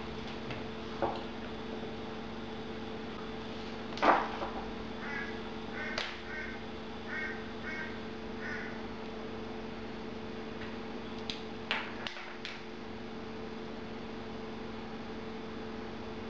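A steady hum, with a few sharp clicks and taps; the loudest comes about four seconds in. Between them, a run of short, harsh calls from a bird or other animal repeats several times.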